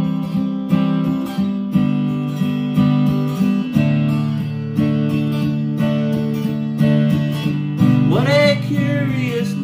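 Acoustic guitar strummed in a steady rhythm, changing chords, with a strong accent about once a second. Near the end a man's voice comes in singing over the guitar.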